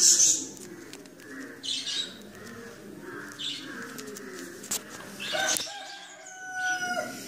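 Birds calling in the background, ending in one longer held call about six seconds in.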